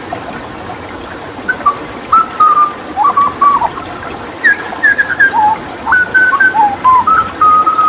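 Hooded butcherbird singing a phrase of short, clear whistled notes, many sliding up or down in pitch, beginning about a second and a half in after a brief pause. Steady running water sounds beneath the song.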